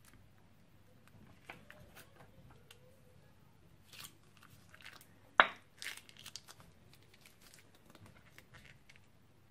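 Soft crinkling and small clicks of a plastic piping bag being snipped open with scissors and squeezed as slime is piped into a glass dish, with one sharp, louder click a little after five seconds.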